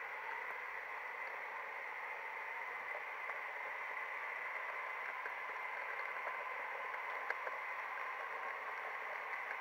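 H0-scale model train running past on the layout track: a steady hiss-like rolling noise with a faint steady whine, and a single sharp click about seven seconds in.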